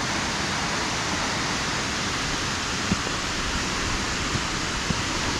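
Waterfall pouring steadily: an even, unbroken rushing hiss.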